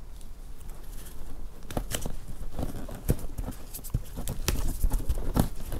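Gloved hands pulling canvas fabric tight and pressing it onto the glued edge of a fiberglass quarter-top shell: irregular taps, clicks and rustles, sparse at first and more frequent from about two seconds in.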